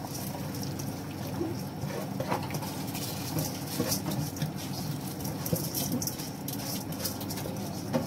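Rice being poured from a steel bowl into a pot of boiling chicken stock: the stock bubbles steadily while the grains patter and splash into it in many small irregular clicks.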